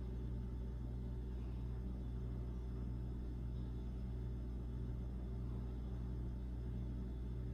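Steady low background hum with nothing else distinct: room tone.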